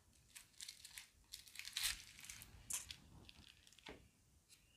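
Faint crinkling and rustling in short, scattered bursts: plastic wrap and stacks of round cardboard cards being handled and set down on a table.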